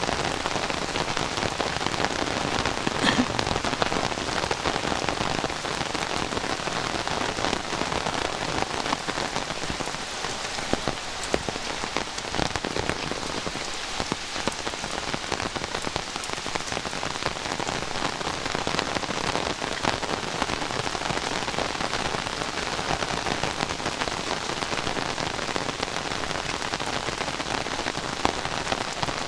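Heavy rain falling steadily, a dense even spatter of drops hitting surfaces.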